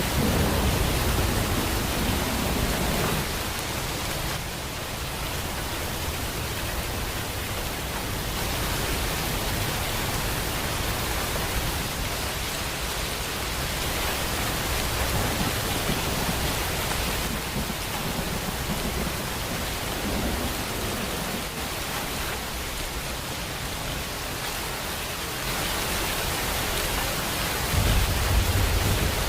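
Steady heavy rain, an even hiss, with a low rumble of thunder in the first few seconds and another just before the end.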